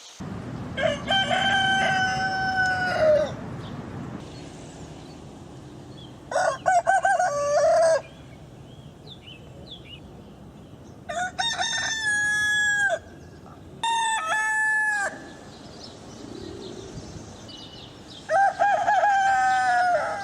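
Roosters crowing cock-a-doodle-doo: five separate crows spread a few seconds apart, each lasting one to two and a half seconds and differing in pitch, over a steady low background hiss.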